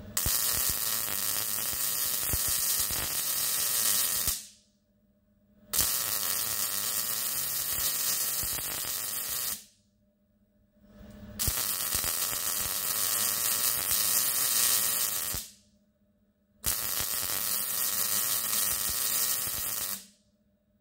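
Wire-feed (MIG) welding arc laying four short weld runs across a round steel tube, each a steady crackling hiss of about four seconds, with pauses of about a second and a half between runs.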